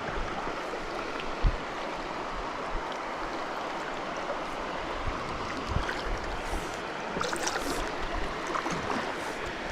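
Creek rapids rushing in a steady wash of moving water, with a couple of brief low thumps.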